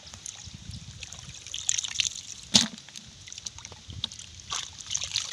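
Shallow muddy water splashing and trickling as someone wades and works a fish net by hand. There are irregular splashes throughout, with one sharper splash about two and a half seconds in.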